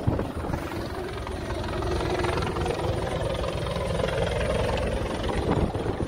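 Patrol boat's engines running under way through rough sea: a steady low rumble, with wind buffeting the microphone.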